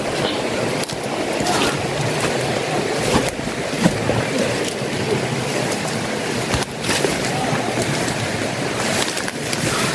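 Leaves and branches rustling and brushing against the body and camera while walking fast through dense undergrowth, with frequent short swishes and snaps.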